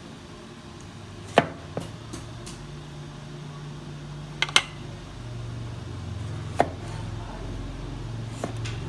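Kitchen knife cutting tomato wedges against a thick wooden chopping board: a handful of sharp, irregular knocks, including a quick pair about halfway through. A low hum builds underneath in the second half.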